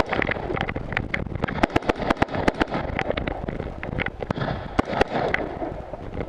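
Semi-automatic AR-15-style rifle firing rapid, irregular shots, about two to three a second, in a timed stage run. The shots ease off near the end.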